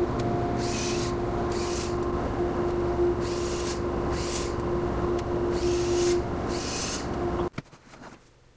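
A woodshop power tool runs with a steady hum, with short hissing surges every second or so. It cuts off abruptly near the end, giving way to a few quieter strokes of a hand plane shaving wood.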